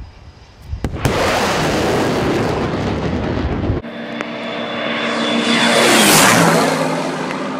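Two aircraft flying past at speed. First a loud roar starts suddenly about a second in and stops at a cut. Then a second aircraft passes low, its engine drone swelling to a peak about six seconds in and dropping in pitch as it goes by.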